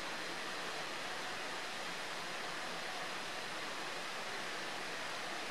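Steady, even rushing noise with no separate events and no change in level.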